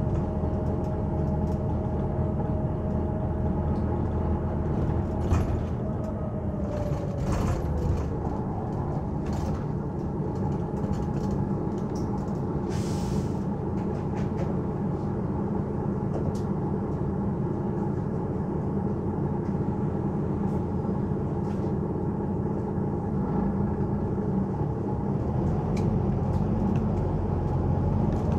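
Volvo B9TL double-decker bus under way, heard from the upper deck: the six-cylinder diesel engine and road noise run steadily, with a whining tone that drops in pitch about six seconds in. A short hiss of air comes about thirteen seconds in.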